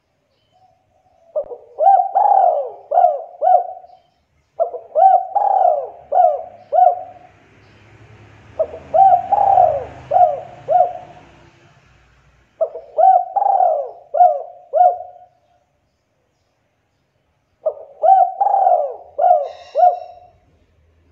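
Spotted dove cooing, in the song type keepers call 'kuk 2': five phrases a few seconds apart, each a quick run of four or five rounded coos.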